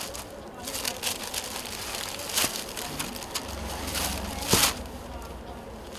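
Rustling and crinkling of folded suit fabric being handled and spread out, with a few louder rustles about two and a half and four and a half seconds in.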